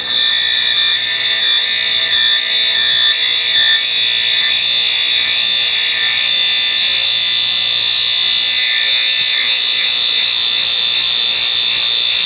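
Grinder wheel grinding the carbide tip of a stump-grinder tooth that a cordless drill spins against it: a loud, steady, high-pitched grinding whine.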